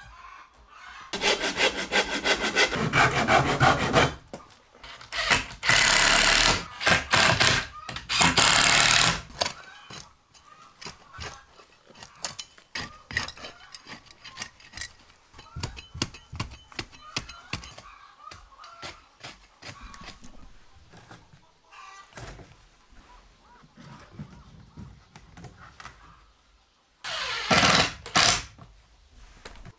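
Wood being sawn in three loud bouts, followed by quieter rubbing and small knocks. Near the end a cordless impact driver briefly runs a screw through wire mesh into a wooden frame.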